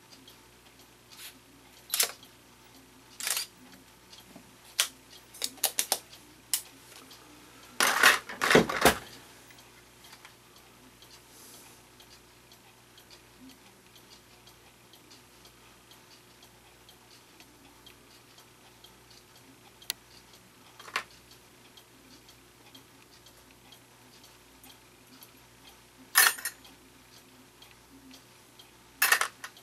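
Small metal clock-movement parts and tools being handled on a workbench: irregular metallic clicks and clinks, with a dense cluster of louder knocks about a quarter of the way in and a few scattered clicks after.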